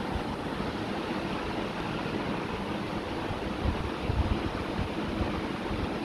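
Steady rushing hiss and low rumble of air and handling noise on the recording phone's microphone, with a few louder low bumps around the middle.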